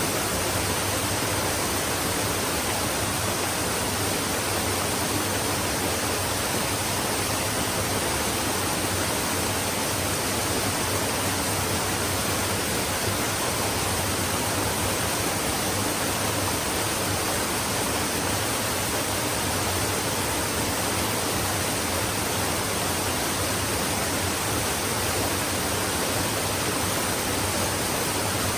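A flowing stream running steadily: an even rush of water without distinct splashes or changes.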